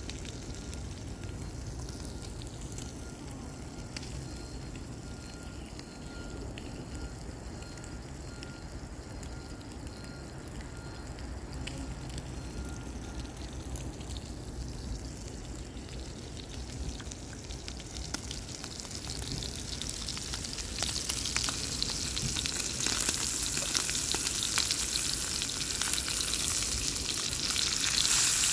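A low steady rush, then from about twenty seconds in, a steak sizzling and crackling in oil in a frying pan on a portable gas camp stove, growing louder toward the end.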